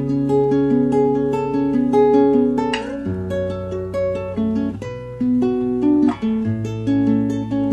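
Guitar instrumental: quick picked melody notes over held bass notes that change every few seconds.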